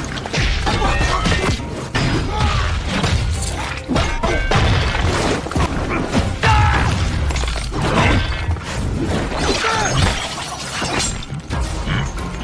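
Animated fight-scene soundtrack: dramatic music mixed with repeated impact and rock-shattering sound effects.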